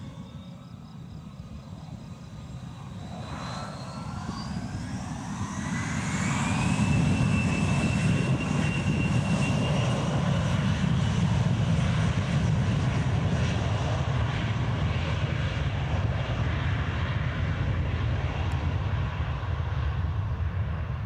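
Two rear-mounted General Electric CF34 turbofans of a Bombardier CRJ regional jet spooling up for the takeoff roll. A whine rises in pitch and the sound grows louder over about the first six seconds, then settles into a steady loud jet roar.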